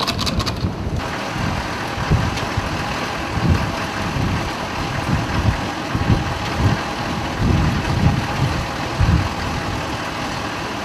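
Military vehicle engines idling, a steady hiss and rumble, with wind buffeting the microphone in irregular low gusts.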